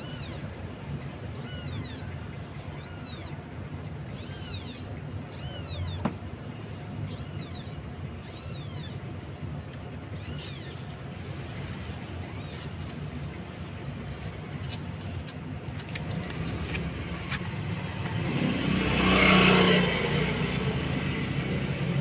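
Newborn kitten mewing in a high, thin voice, about once a second, calling for its mother; the mews die away about two-thirds of the way through. Near the end a broad rushing noise swells up and fades.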